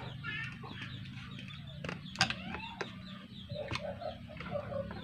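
Background bird calls with clucking, with a few sharp clicks between them over a steady low hum.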